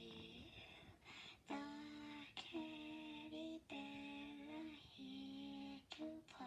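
A high, faint voice singing slow, held notes one after another in a lullaby-like tune, each note lasting about a second with short breaks between.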